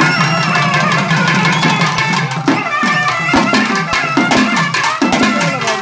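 Live folk music for karakattam dancing: fast, dense hand-drumming under a sustained melody line. From about halfway the drum strokes drop in pitch, about two a second.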